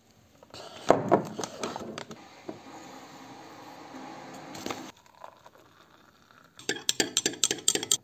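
Crackling, then a steady pouring hiss as instant coffee powder goes into a glass mug. Near the end comes a quick run of clinks: a spoon stirring the drink against the glass.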